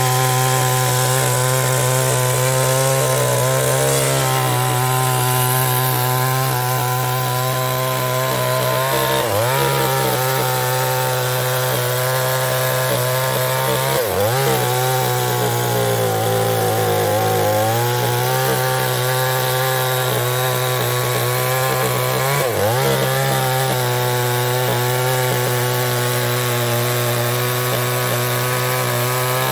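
Chinese-made two-stroke chainsaw running at high revs while cutting mahogany wood. The engine speed dips and recovers briefly about three times and sags lower for a couple of seconds midway, as the chain is loaded in the cut.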